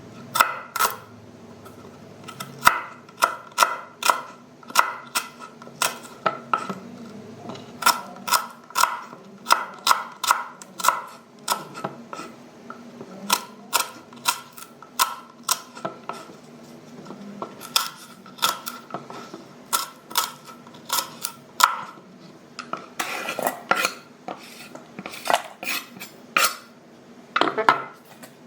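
Knife slicing an onion on a cutting board: a long run of sharp knocks as the blade meets the board, irregular at about one or two a second, with a few quicker clusters near the end.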